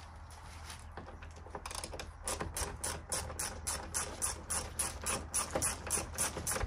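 Hand socket ratchet clicking in an even rhythm of about five clicks a second, starting about two seconds in, as a fixing is wound out of the car's front panel.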